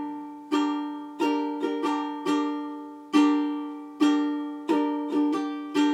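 Ukulele strummed in a repeating down-down-up-up-down-down strumming pattern on one held chord: about eleven strums, each ringing out and fading before the next.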